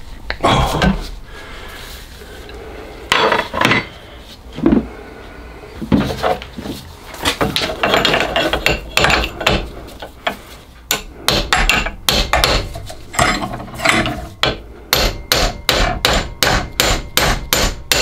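Hammer blows on a brass drift held against a seized steam-boiler clack valve in a vise, trying to shock the part free of its puller. The blows are scattered at first, then come in a quick steady run of about three a second in the second half. The part stays stuck.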